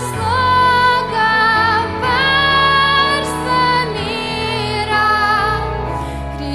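Slow live worship song: a sustained lead melody with vibrato over soft, steady accompaniment.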